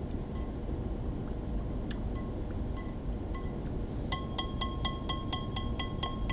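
A wooden chopstick stirring developer solution in a dish, tapping the dish now and then, then about four seconds in clinking against it in a quick even rhythm of about four taps a second, each tap ringing briefly. A steady low hum runs underneath.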